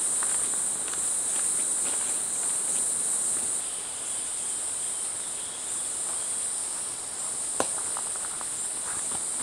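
Steady high-pitched drone of forest insects, with faint footsteps on dry leaf litter and one sharp click about seven and a half seconds in.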